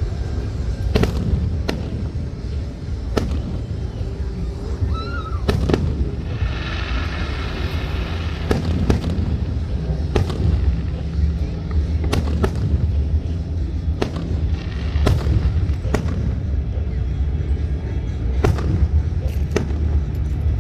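Fireworks bursting: a dozen or more sharp bangs at irregular intervals, over a steady low rumble.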